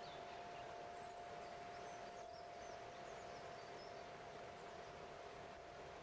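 Water running over a stepped rock cascade, a faint even rush, with a crystal harp's singing bowls holding one steady ringing tone over it. A few faint high bird chirps come two to three seconds in.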